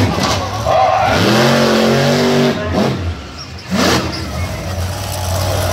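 Monster truck engine revving hard on the dirt, its pitch climbing and falling between throttle blips, with a few sharp loud bursts.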